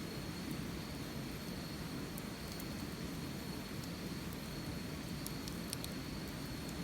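Wood fire burning: a steady low rush of flame with scattered crackles, and a quick cluster of pops about five seconds in.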